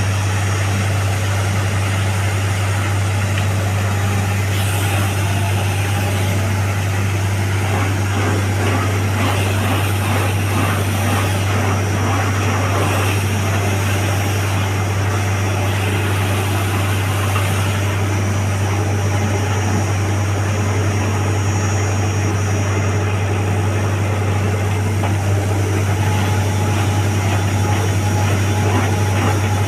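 Borewell drilling rig's engine running steadily, with a strong constant low hum.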